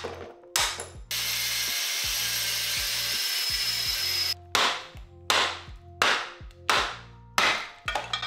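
Heavy hammer blows on a cast-iron electric motor housing: two sharp strikes, then a power tool running steadily for about three seconds, then about six more strikes, each ringing briefly. Background music plays underneath.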